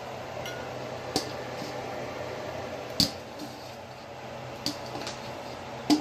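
Steady faint room hum broken by a few short, sharp clicks and taps, the loudest about three seconds in.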